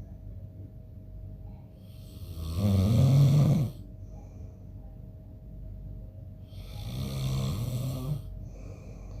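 A man snoring in his sleep: two snores about four seconds apart, each lasting a second or so, the first one louder.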